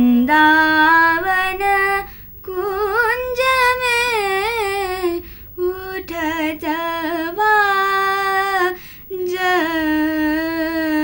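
A woman singing alone, holding long notes whose pitch slides and wavers in ornamented turns, with three short breaks between phrases.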